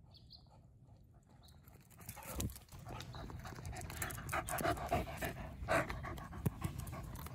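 A corgi panting close up, starting about two seconds in and growing louder as it comes near.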